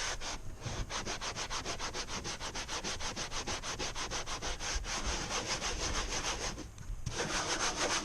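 Scrubbing a kayak hull with Super Clean degreaser: quick back-and-forth scrubbing strokes, several a second, with a brief pause near the end.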